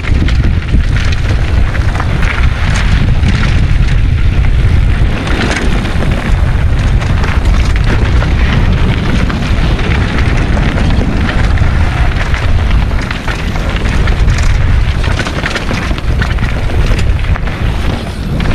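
Heavy wind buffeting on a helmet-mounted GoPro's microphone as a mountain bike rides down a rocky trail, with steady clatter of the bike and tyres over stones.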